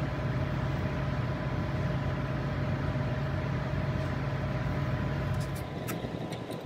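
Steady mechanical hum and rush of a running machine, which dies away about five and a half seconds in; a few light clicks follow near the end.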